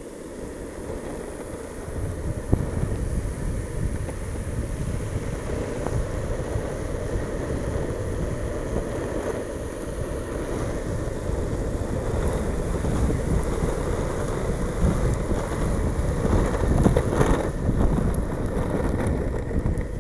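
Longboard wheels rolling over asphalt with a steady rumble, mixed with wind buffeting the microphone. The rumble grows louder about two seconds in, and a few sharp knocks come in the second half.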